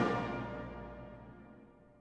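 Closing music fading out, a held chord dying away steadily.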